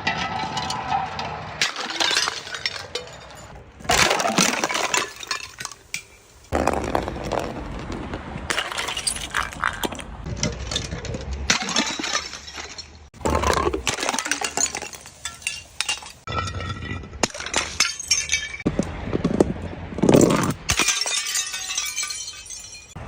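Glass bottles breaking and shattering again and again, with clinking and rattling of glass pieces. The crashes come in a string of short separate takes that start and stop abruptly.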